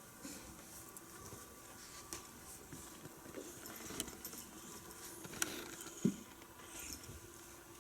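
Tabby cat sneezing: a few short, sharp sounds, the loudest about six seconds in.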